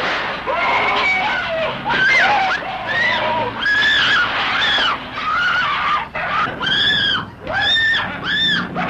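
A series of shrill cries, each rising and falling, overlapping at first and then coming one after another with short breaks.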